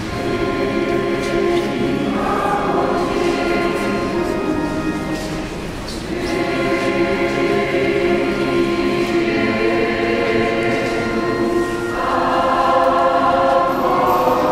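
Choir singing a slow church chant in long held chords that change every few seconds, growing louder near the end.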